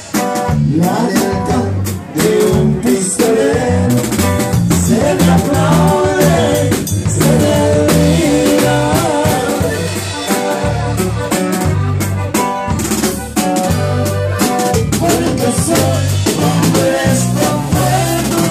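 Live norteño band playing: button accordion carrying the melody over drums and guitar.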